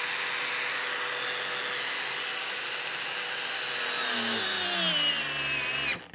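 Makita 40V XGT X-Lock brushless angle grinder running at top speed (setting 5), its disc grinding into a rusty steel sheet. About four seconds in, the motor pitch drops as it is pushed harder. Near the end it stops abruptly as the grinder's safety cut-out kicks in.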